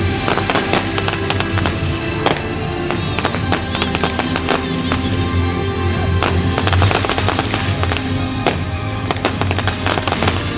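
Fireworks going off in a dense run of bangs and crackles over loud show music.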